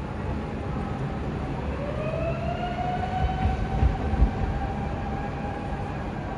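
Tokyo Metro Ginza Line train moving slowly past the depot: a low rumble of wheels on rail with a few thumps in the middle. A whine rises in pitch about a second and a half in, then holds steady and fades.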